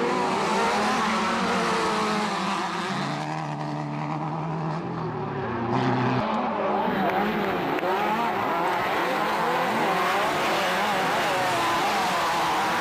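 Engines of several off-road race buggies running hard on a dirt course. They hold fairly steady pitches at first, then rise and fall as the buggies rev through the second half.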